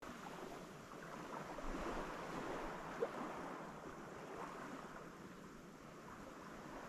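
Small waves washing gently onto a sandy beach, a steady wash that swells slightly about two seconds in. A single short click about three seconds in.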